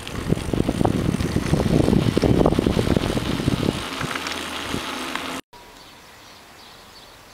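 Wind buffeting the microphone of a camera on a moving bicycle: uneven gusting and thudding noise. It cuts off suddenly about five and a half seconds in, leaving a quiet outdoor background.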